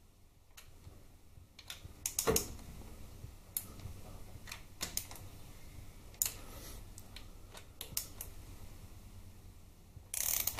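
Socket ratchet clicking in short runs as the bolts of a Harley Twin Cam's chrome transmission side cover are nipped up before final torquing. The socket also knocks against the bolt heads now and then, and a fast, louder run of ratchet clicks comes near the end.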